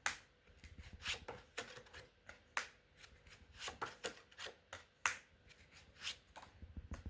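A tarot deck being shuffled by hand: a run of irregular, crisp card flicks and snaps.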